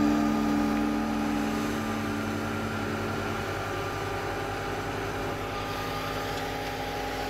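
Tractor-driven wheat thresher running steadily under the tractor's engine, a continuous mechanical drone with a fast, even pulse.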